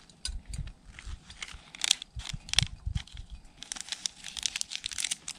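Crinkling and tearing of a small wrapper in the hands, in bursts of crackle, densest about two seconds in and again near the end.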